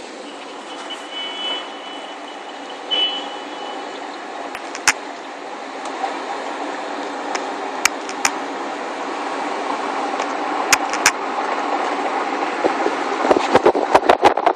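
Road and wind noise of a moving car heard from inside the cabin, growing gradually louder, with scattered sharp clicks. Near the end it breaks into rapid, irregular thumps.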